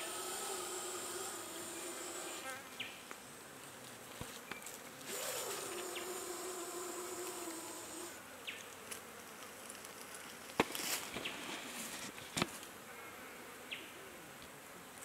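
A flying insect buzzing close by in two long passes of about three seconds each, the first at the start and the second from about five seconds in. Later come a couple of sharp snaps.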